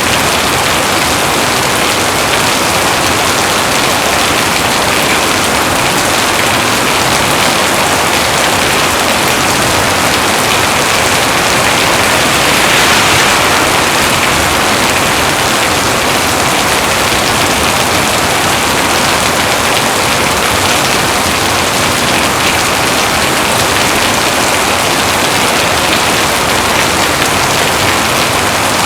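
Heavy rain falling steadily in a dense, even hiss, swelling slightly about halfway through.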